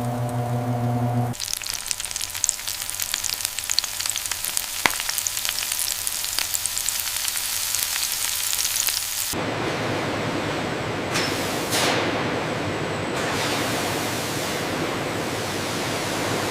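Food sizzling and crackling, dense with sharp ticks like fat spitting on a roasting turkey, starting a moment in after a brief steady hum. About nine seconds in it gives way to a steady rushing hiss.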